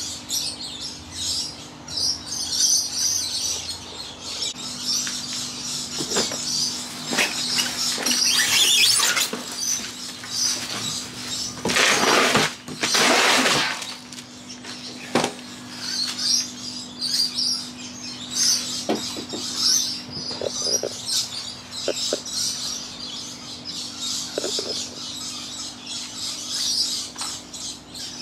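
Birds chirping over the steady hum of an air-conditioning unit, with knocks and crinkling plastic wrap as the boxed electric scooter is handled and lifted out. The loudest rustle comes about twelve seconds in and lasts a couple of seconds.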